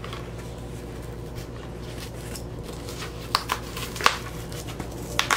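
Cardboard record mailer being torn open by hand: a few short, sharp rips and snaps in the last two seconds. A steady low hum runs in the background throughout.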